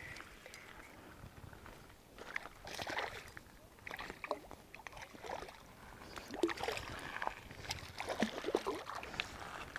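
Water splashing and sloshing in irregular bursts, from about two seconds in.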